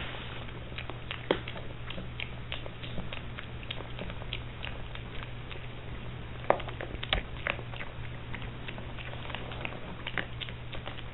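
Piglet eating dry feed pellets: quick, irregular crunching clicks of chewing, with a few louder crunches about a second in and past the middle. A steady low hum runs underneath.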